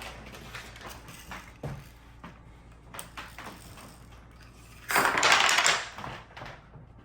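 A homemade Rube Goldberg contraption running: a few small clicks and taps as its parts knock into one another, then a loud clattering rush lasting about a second, about five seconds in.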